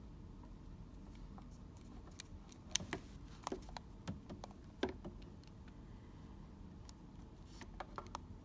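Scattered light plastic clicks from handling an Astro A50 wireless headset and pressing its buttons for a hard reset, the sharpest about three seconds in and a small cluster near the end.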